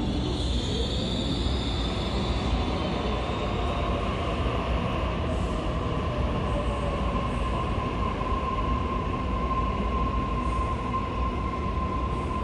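Sydney Trains double-deck electric train pulling out of an underground platform, running steadily past with a low rumble. A high whine fades in the first few seconds, and a steady whine strengthens from about halfway through as the train gathers speed.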